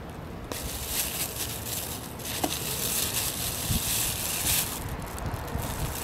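Outdoor background hiss, swelling about half a second in and easing off after four and a half seconds.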